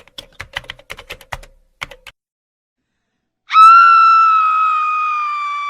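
Rapid clicking of computer keyboard typing for about two seconds. After a short silence, a loud, high-pitched held tone comes in about three and a half seconds in and slowly drops a little in pitch.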